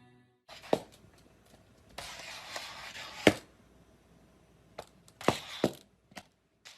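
A few sharp knocks and thumps in a small room: one about a second in, a louder one near the middle, and a quick pair near the end, with a soft hiss for about a second before the loudest knock.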